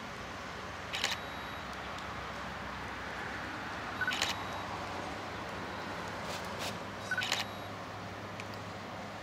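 A stills camera's shutter firing in short bursts of clicks about every three seconds, three times. The second and third bursts each come just after a short double beep, the sound of a self-timer counting down before each burst. A steady hiss lies underneath.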